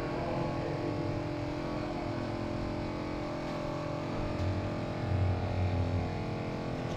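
Boat engine running steadily with a constant hum, a deeper drone joining in about four and a half seconds in.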